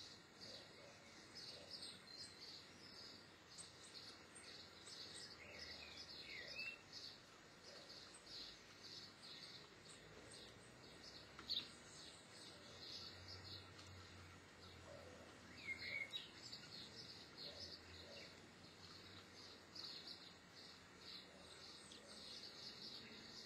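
Near silence with faint, rapid high-pitched chirping throughout, a couple of brief squeaky glides, and one sharp click about eleven and a half seconds in.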